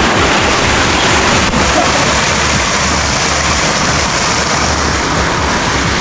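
Loud, steady rush of flowing water, like a river cascade or waterfall close by.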